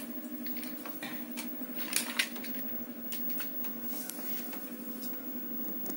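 Light clicks and rattles of small plastic toy animals being handled on a tiled floor, with two louder clacks about two seconds in, over a steady low hum.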